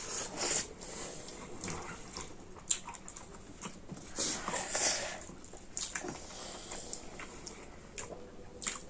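People eating close to the microphone: chewing and lip smacks, with scattered sharp clicks and short hissing slurps of curry broth.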